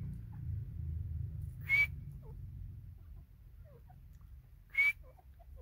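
Two short, sharp bird calls about three seconds apart, each a quick rising whistle, with faint soft chirps between them over a low rumble.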